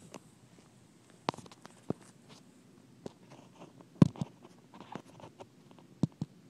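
Scattered knocks and clicks from a phone being handled and set down on the ground, the loudest about four seconds in.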